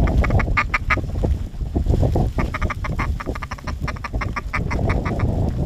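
Rapid series of duck quacks, about six a second, one run ending about a second in and a second run starting midway, over a steady low rumble.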